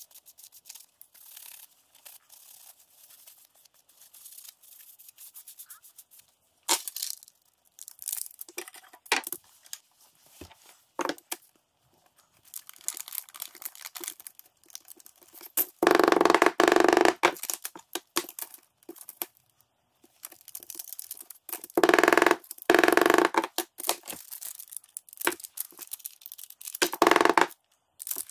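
Sheet of heat-treating foil crinkling and rustling as it is folded around a knife blade, with light handling noise at first and then three loud bursts of crinkling in the second half.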